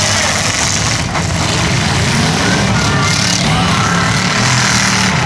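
Engines of several demolition-derby pickup trucks running and revving at once, a loud steady din with rising and falling revs.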